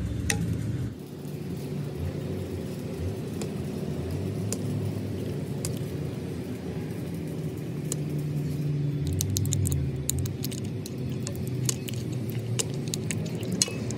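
A machine's motor or engine running steadily in a workshop, with scattered light metallic clinks and taps, several of them together about nine seconds in and again near the end.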